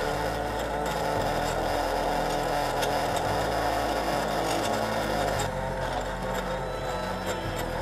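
Maya drink machine's motor-driven mixer whipping milk and ice in a glass jug on its cold-drink program: a steady mechanical whirr.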